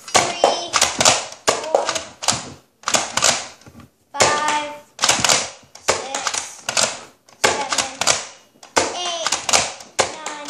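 Nerf Zombie Strike dart blaster being primed and fired over and over, a train of sharp plastic clacks and pops about one to two a second, more than a dozen in all.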